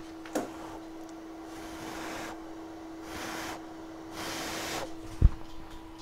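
Steady low hum from bench equipment, with three short airy hisses in the middle and one sharp thump about five seconds in, the loudest thing here.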